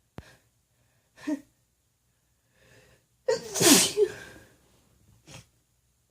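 A woman's loud, unmuffled sneeze about halfway through, after a short catching breath in. A brief breath follows about a second later.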